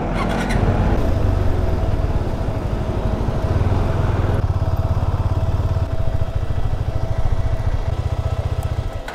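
KTM 390 Adventure's single-cylinder engine running, a steady low throb, with wind noise that drops away about four seconds in.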